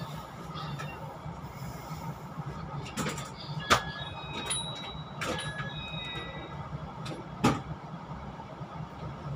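Railway station platform ambience: a steady low hum from the train standing at the platform, passengers walking past, and a few sharp knocks, the loudest about four and seven and a half seconds in, with brief high squeaks between them.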